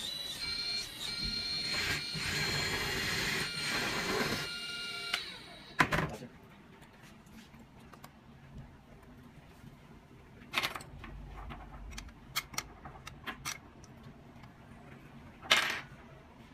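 Background music that stops about five seconds in, then sharp plastic clicks and snaps from hands working the cab of an RC excavator model, opening its door and roof hatch. There is a loud click about six seconds in, a run of lighter clicks a few seconds later, and another loud click near the end.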